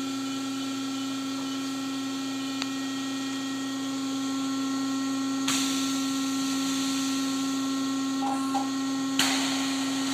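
Steady machine hum from a flash butt welder with hydraulic upset, with a small click a couple of seconds in, then a sudden hiss about halfway through that carries on and a sharp clack with a burst of hiss near the end as the jaws clamp up a steel bar.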